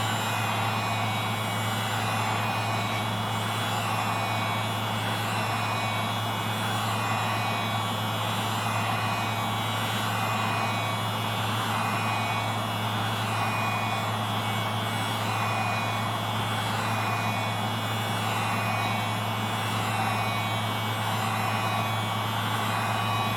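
Wagner heat gun running steadily, a constant blowing with a low hum, heating the phone's back glass to soften the adhesive.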